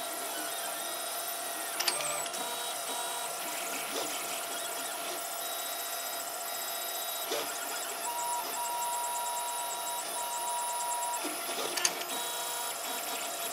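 Protomaker Black Sprint FDM 3D printer running a print: its stepper motors whine steadily as the nozzle carriage moves, with short tones that switch on and off as it changes moves. Two sharp clicks come, about two seconds in and again near the end.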